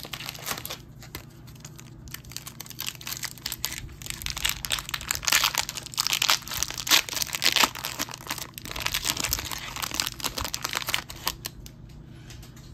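Foil wrapper of a trading-card pack crinkling and tearing as it is opened by hand: a dense crackle of small clicks, busiest in the middle stretch.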